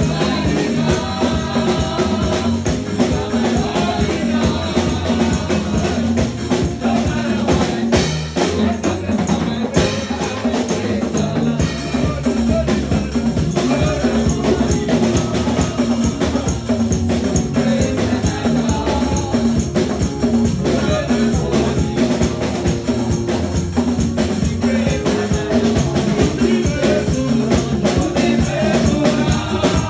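Live upbeat church praise music: singing over a steady beat of drums and hand percussion, played for the congregation to dance to.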